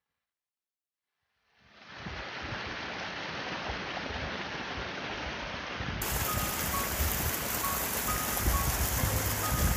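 Rushing water of a mountain stream, fading in after a second and a half of silence. Soft background music with short, spaced notes comes in over it about six seconds in.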